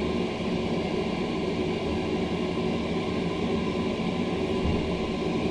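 Schindler hydraulic elevator car travelling between floors, heard from inside the cab as a steady running noise with a constant hum.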